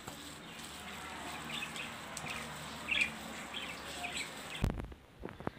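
A fork stirring and mashing a sticky potato and cheese filling in a glass bowl, a soft wet scraping with a few short high chirps over it. It cuts off abruptly near the end with a thump.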